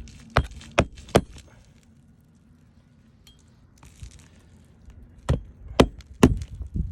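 Sharp knocks on the roof: three in quick succession, then a quiet stretch, then three more near the end.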